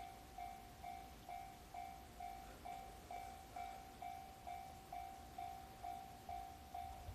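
Japanese level-crossing warning bell ringing, one electronic ding repeated evenly about two and a half times a second, signalling a train at the crossing. A faint low rumble lies underneath.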